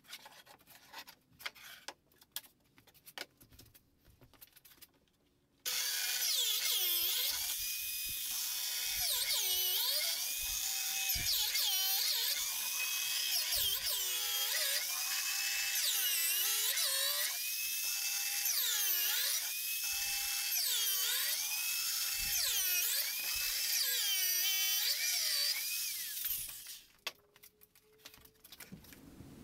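Power tool motor whining at a high pitch while working wood, its pitch dipping and recovering about every two seconds as it loads up. Before it starts there are light knocks of the wood being handled.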